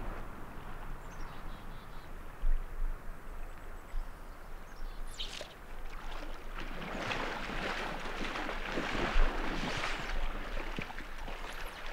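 River water flowing steadily; from about halfway it turns louder and rougher with splashing as legs in waders push through the shallow water.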